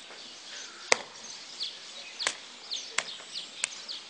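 Five sharp knocks at uneven intervals, over birds chirping in short falling calls.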